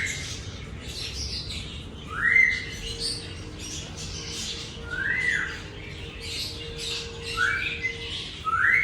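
Grey parrot calling: a short rising whistle repeated four times, over continual scratchy, squawking chatter.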